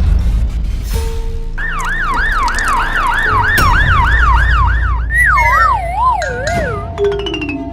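A siren sound effect wailing up and down quickly, about three sweeps a second. It then slows and slides down in pitch as it winds down, over a low rumble.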